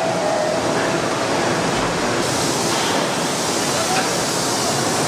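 Steady factory-floor noise of a car body shop: a dense, even rush of machinery and conveyors running, growing hissier about two seconds in, with no single distinct event.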